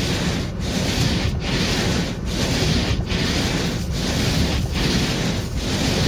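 Windshield wiper blades scraping back and forth across a windshield frozen over with ice and slush, one sweep about every 0.8 seconds with a short break at each turn.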